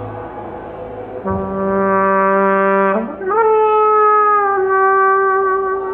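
Solo trumpet playing slowly. About a second in it sounds a low note and holds it, then slides up to a higher note and sustains it, easing down slightly partway through.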